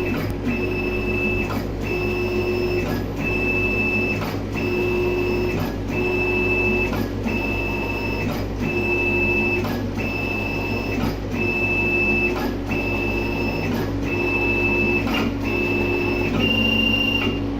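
Label die-cutting machine running a cutting job: its motors whine for about a second, then stop with a click and start again, steadily about every 1.4 s, over a constant low hum. Near the end the whine shifts briefly higher.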